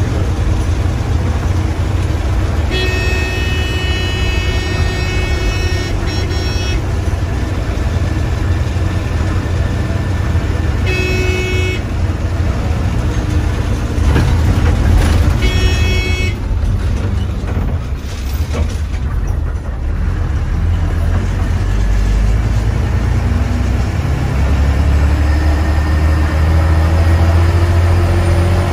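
Bus diesel engine running with a steady low rumble, while a vehicle horn sounds three times: one long blast of about four seconds, then two short toots. Near the end the engine note rises as it revs up.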